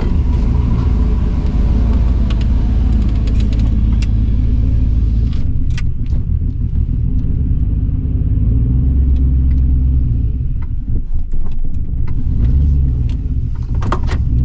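Junkyard 5.3 L aluminum LS V8 with a Truck Norris camshaft running on its first drive, with a deep choppy note that swells a couple of times in the second half. It runs a little rough on an unfinished tune.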